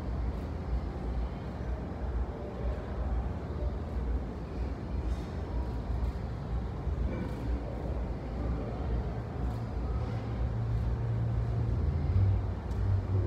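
Steady low rumble of a gym's background noise, with a low hum that grows stronger near the end and a few faint ticks.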